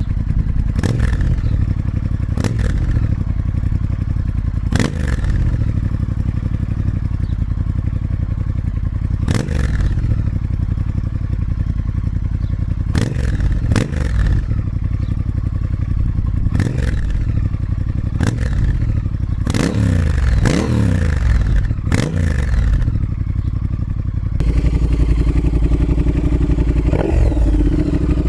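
Triumph Speed Twin parallel-twin engine idling through an X-pipe exhaust and revved in short throttle blips about a dozen times, the pitch rising and falling with each. About 24 seconds in, the sound turns louder and deeper as the Cone Engineering Shorty Cone slip-on mufflers are added to the X-pipe.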